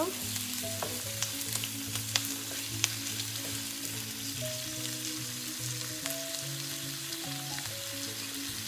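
Shrimp, garlic and onions sizzling in hot oil in a wok as they are stir-fried, with a utensil clicking against the wok now and then.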